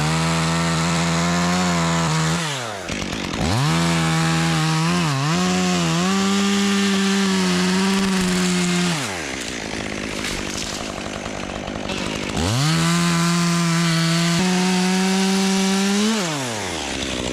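Chainsaw cutting through a maple limb: revved up to full throttle three times, holding a steady high pitch through each cut, and dropping back to idle in between, with the longest idle about two-thirds of the way through.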